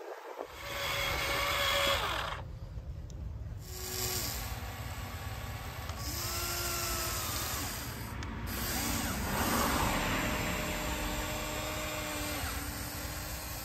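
Electric motors of a Huina radio-controlled toy excavator whining as it works. A steady buzz runs under whines that start, stop and shift pitch every few seconds as different functions are driven.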